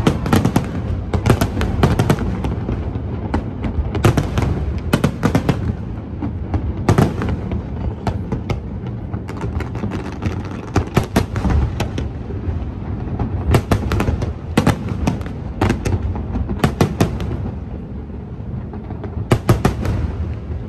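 Fireworks display: repeated volleys of dense, sharp cracks and bangs over a continuous low rumble, with short lulls between the volleys.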